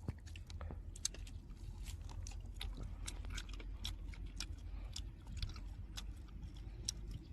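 A person eating: chewing and biting food, with many small irregular clicks and mouth smacks over a low steady hum.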